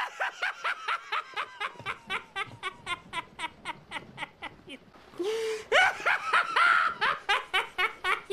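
A person laughing in a long run of quick bursts, about four a second, with a short break about five seconds in before the laughing picks up again louder.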